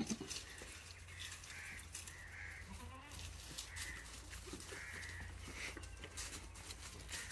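Short animal calls in a goat yard, about six of them spaced a second or so apart, among light clicks.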